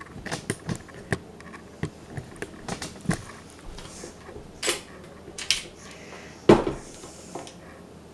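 Clicks and knocks of a KitchenAid tilt-head stand mixer being handled while switched off: the head unlocked and tilted up and the beater knocking against the stainless steel bowl, with one loud clunk about six and a half seconds in.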